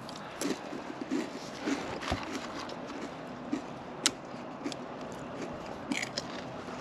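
A handheld work light being handled, with faint rustles and small knocks over a steady background hiss. A sharp click comes about four seconds in and a few more clicks near the end.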